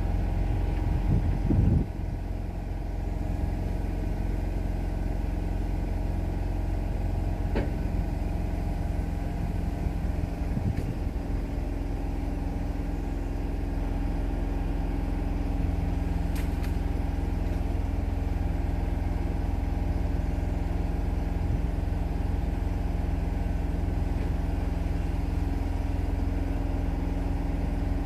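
An engine idling steadily. There is a brief low bump about two seconds in and a few faint clicks later.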